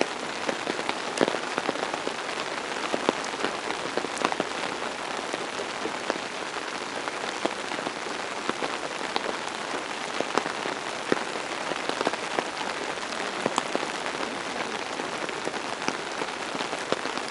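Steady rain falling, an even hiss with many irregular sharp ticks of drops striking close by.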